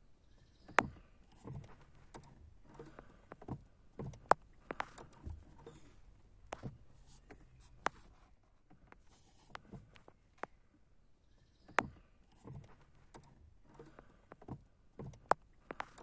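Irregular clicks and light knocks from a 2011 Kia Sportage III's clutch pedal mechanism as the pedal is worked and its rubber stop meets the upper clutch switch plunger. The sharpest clicks come about a second in, around four seconds and near twelve seconds.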